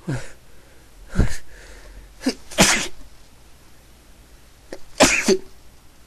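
A person sneezing over and over in a fit, about four sneezes a second or two apart, each a sudden loud blast. The sneezer puts the sneezing down to an allergy to something unknown.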